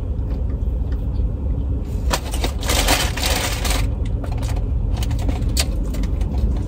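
Eating-utensil clicks and a takeout container rustling, with a longer rustle about two and a half seconds in lasting about a second, over the low steady rumble inside a car.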